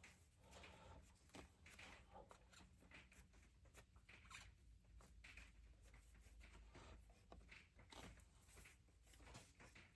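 Near silence: room tone with a faint low hum and scattered faint ticks and rustles of small handling.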